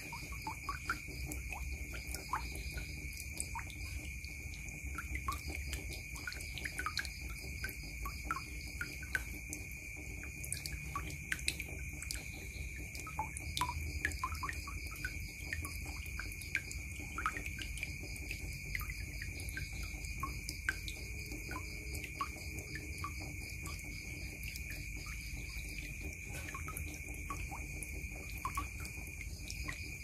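Water dripping and trickling into a plastic basin full of water: a continual run of quick, irregular plinks and small splashes. A steady high-pitched tone runs underneath.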